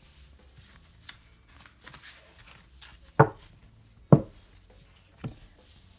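Oracle cards handled on a cloth-covered table: faint rustling and light clicks, then three sharp knocks about a second apart from halfway through, as the deck or cards are set or tapped down.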